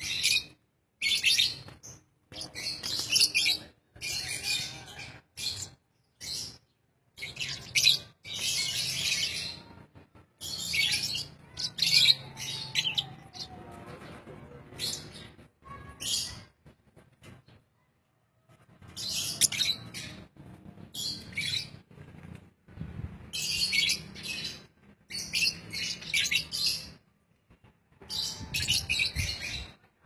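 Lovebirds chirping in short, high bursts with brief pauses between them.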